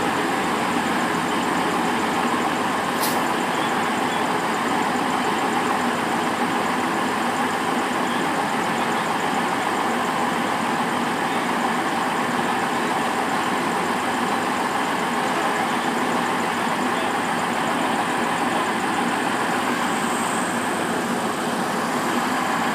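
Diesel engines of TransPennine Express Class 185 multiple units running at a steady drone while a train pulls out. There is a brief sharp tick about three seconds in.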